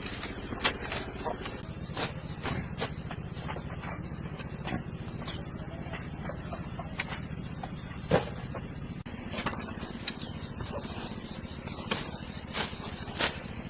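Steady high-pitched chirring of crickets, with scattered short knocks and clicks over it; the loudest knock comes just past the middle.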